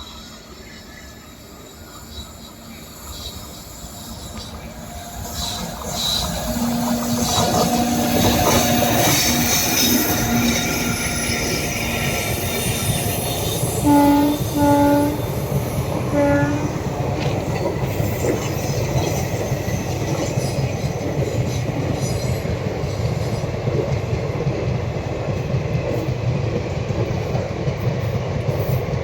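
A passenger train, the 18022 Khurda Road–Kharagpur Express, grows from faint to loud over several seconds as it draws near, then runs on with a steady rumble of wheels on rail. About halfway through, its horn gives three short blasts.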